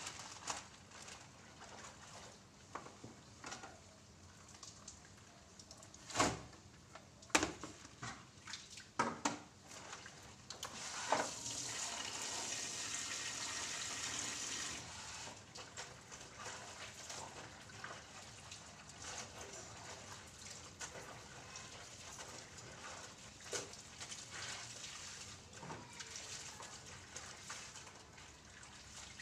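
Clothes being washed by hand in plastic basins: faint splashing and rubbing of wet cloth, with a few sharp knocks of basins or bottles. Around the middle, a wall tap runs into a basin for about four seconds and then stops.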